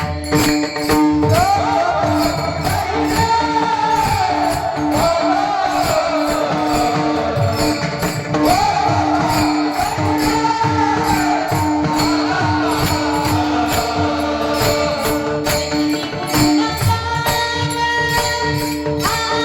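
Devotional kirtan music: a steadily pulsing held note and a fast, even clash of small hand cymbals, with a gliding sung melody over them for the first half or so.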